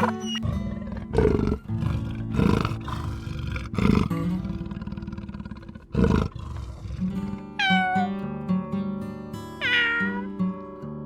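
An animal calling over background guitar music: four loud, harsh, rasping calls in the first six seconds, then two wailing calls that fall in pitch.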